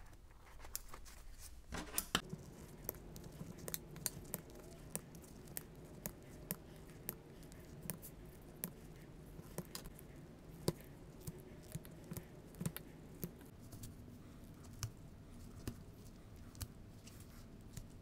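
Scissors and cutting pliers snipping through the leather lacing of a baseball glove's web: short sharp snips, unevenly spaced at about one to two a second, over a faint low hum.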